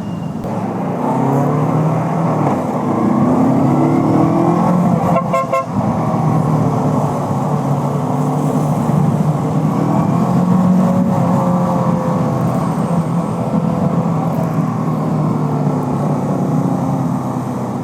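Bristol Venturi 500 motorcycle engine running under way, its pitch rising and falling as the rider accelerates and eases off, with a brief dip about five seconds in.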